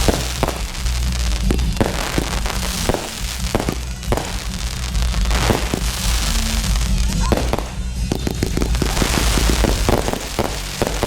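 Fireworks display: a rapid series of shell bursts and bangs, turning to a crackling hiss of many small reports in the last few seconds, over music with a heavy bass line.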